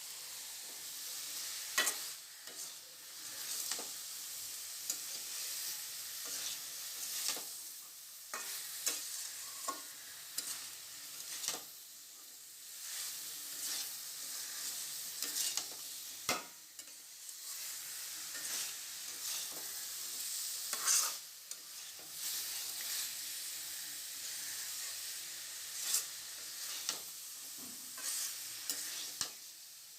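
Masala, soya chunks, potatoes and cauliflower sizzling in a kadai with a steady hiss, as a spatula stirs them with irregular sharp scrapes and knocks against the pan.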